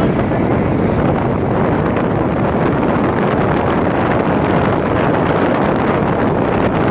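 Steady rush of wind over the microphone on a moving motorcycle, with the motorcycle's engine and road noise underneath.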